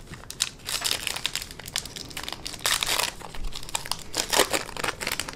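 Foil wrapper of a baseball card pack crinkling in the hands in irregular bursts as the pack is handled and opened.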